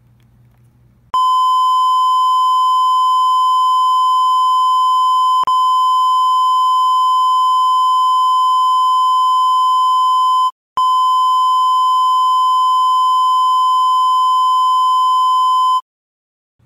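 Loud, steady, pure high beep: the broadcast test tone of a 'technical difficulties, please stand by' card. It starts about a second in, has a faint click near the middle and a brief break about two-thirds through, and cuts off near the end.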